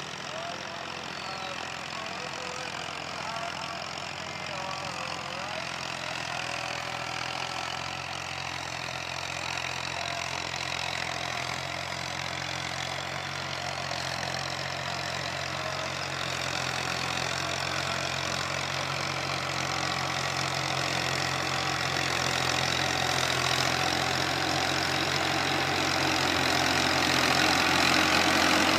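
Old-model Universal U530 tractor's diesel engine running steadily while it pulls a rotavator through the soil, growing louder as the tractor comes closer.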